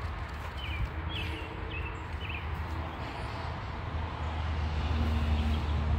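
Outdoor ambience: a steady low rumble with rustling of dry leaves underfoot, and a few short bird chirps in the first couple of seconds.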